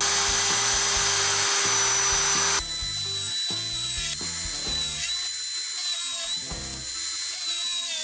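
Skil 550 W corded electric drill mounted in a drill stand, running and boring into pine: a steady whine over a rush of noise. The sound changes abruptly about two and a half seconds in.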